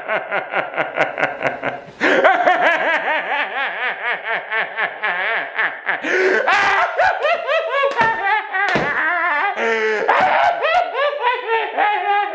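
A man laughing long and hard, an exaggerated villain's cackle in rapid "ha-ha" pulses. It breaks briefly about two seconds in, starts again loudly, and later swoops up and down in pitch.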